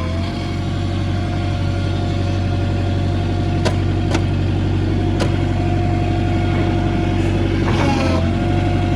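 Bobcat 743 skid steer engine running steadily, with three sharp clicks or knocks in the middle and a brief dip in engine pitch near the end.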